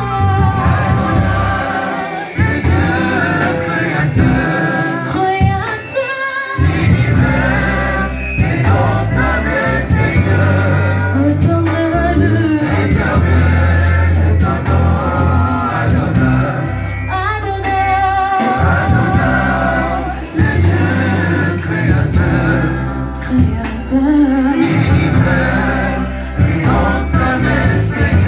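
Gospel worship music: singers over a band with a strong bass line, continuing without a break.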